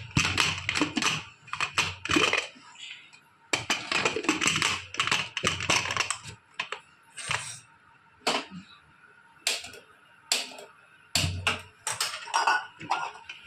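Rapid metallic clicking and clinking from handling an aluminium pressure cooker with its lid shut and the whistle weight on. It comes in two dense runs of about two and three seconds, then scattered single clicks.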